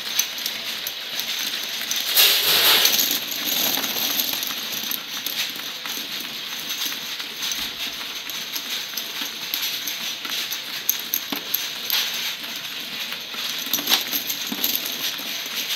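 Small glass vials clinking and rattling against one another as labeled vials drop off a horizontal labeling machine into a collection bin, a dense run of small clicks with a louder rush about two seconds in.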